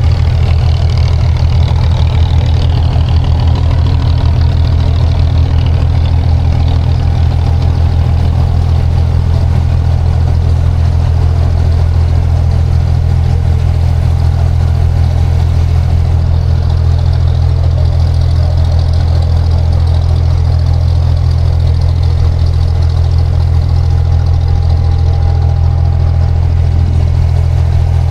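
A boat's engine running steadily at a constant low drone, close by.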